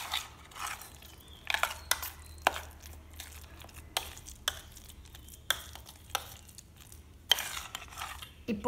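Steel spoon clinking and scraping against a stainless-steel bowl in irregular strokes as a thick, moist filling of ground chana dal and jaggery is stirred and mashed.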